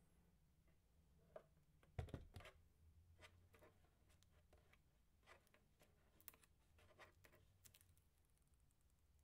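Quiet handling noise from unboxing: scattered faint clicks and taps of packaging and parts being moved, with a duller knock about two seconds in.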